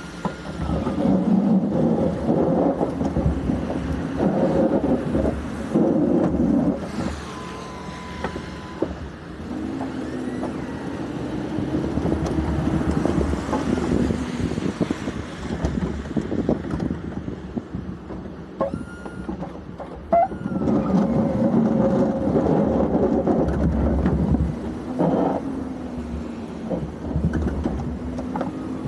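Ford F-350 pickup's engine running under load while its Boss snowplow pushes snow, with the blade scraping along the pavement. It gets louder from about a second in to about seven seconds, and again from about twenty to twenty-five seconds in.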